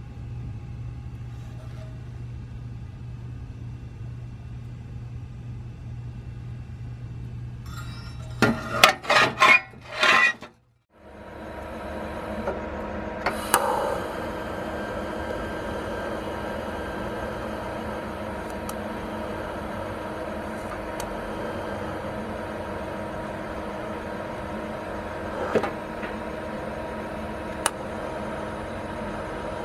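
A steady machine hum, broken by a quick run of loud knocks and a short drop-out, after which a steady hum with several fixed tones and a few sharp clicks carries on.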